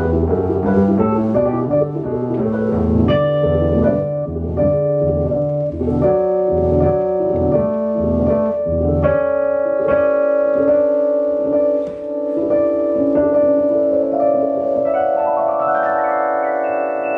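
Piano improvising jazz. Busy low notes fill the first half; then held chords ring in the middle register, with notes added one above another near the end.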